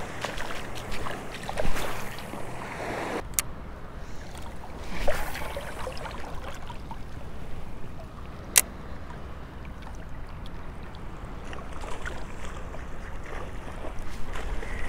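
Shallow surf water lapping and sloshing close by, under a low steady rumble, with two sharp clicks, one a few seconds in and one just past halfway.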